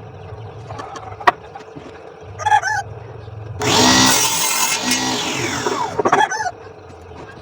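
Small electric power-tool motor switched on briefly: it starts suddenly about halfway through, runs for about a second, then winds down with a falling whine.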